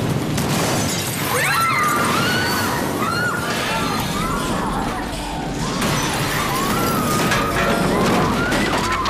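Aftermath of an explosion: debris crashing and glass shattering amid fire, loud and dense throughout. From about a second and a half in, high wavering cries rise and fall over it.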